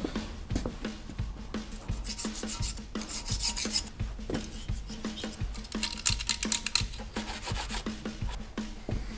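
Intake manifold being scraped and scrubbed clean by hand: quick back-and-forth rubbing strokes in two bouts, over a steady low hum.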